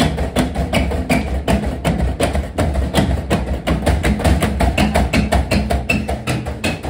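Gorenje washing machine spinning hard, its drum knocking violently against the cabinet about five times a second over the motor's low hum, as in a deliberately unbalanced spin meant to wreck the machine.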